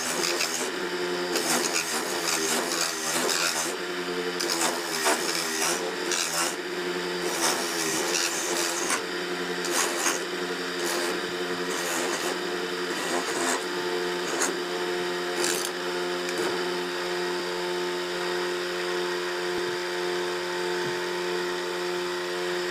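Electric coconut grater's motor running steadily while a half coconut is pressed against its spinning toothed head, grating the flesh in irregular scraping bursts. For the last several seconds the motor runs on alone with nothing against the head.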